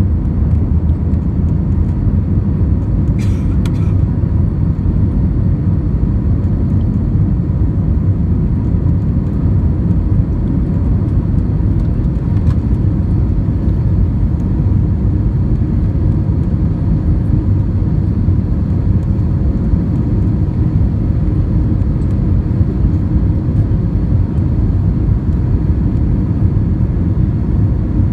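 Airbus A320 cabin noise in the climb after takeoff: a steady low rumble of the engines and rushing air, heard from a window seat over the wing. Two brief clicks about three seconds in.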